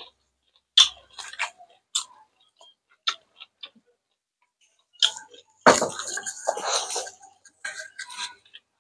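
Close-miked eating sounds: scattered wet lip smacks and chewing clicks as two people eat rice and adobo with their hands. A longer, denser crackly stretch comes a little past halfway.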